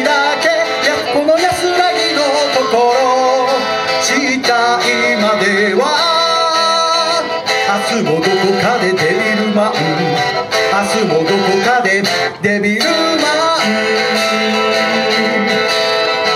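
Live music: an electric guitar played over a backing track through PA speakers, with a melody line bending up and down over it.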